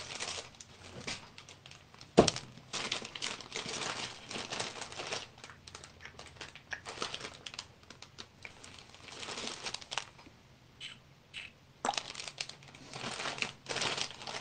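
Crinkling and rustling of plastic packets of paper craft flowers being handled and sorted through, in irregular bursts, with one sharp knock about two seconds in.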